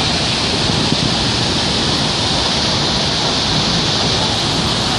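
Waterfall: a loud, steady, even rush of falling water.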